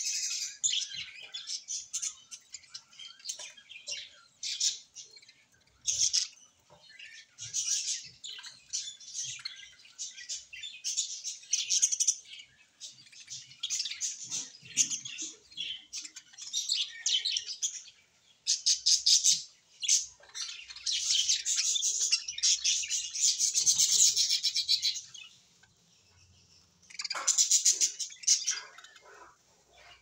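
Budgerigars chirping in rapid high-pitched bursts, some lasting several seconds, with brief quieter gaps.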